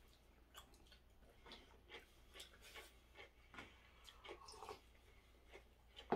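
Quiet eating at a table: faint chewing and small clicks of chopsticks and tableware, with one sharper click near the end as tableware is set down.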